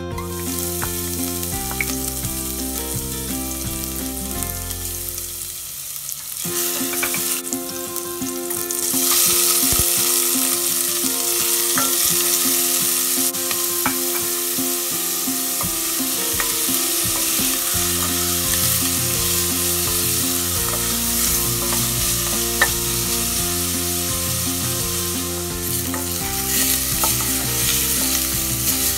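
Chopped onion, garlic and ginger sizzling in hot oil in a stainless steel pot while being stirred with a wooden spoon. The sizzle starts about six seconds in and grows louder about nine seconds in. Soft background music plays underneath.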